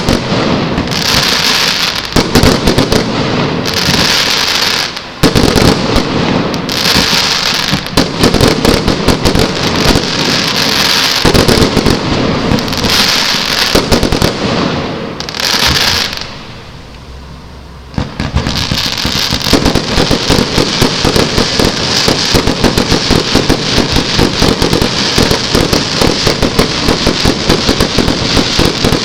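Fireworks going off: a continuous barrage of bangs and crackling, with a short lull a little past halfway, then a dense, rapid volley of bangs.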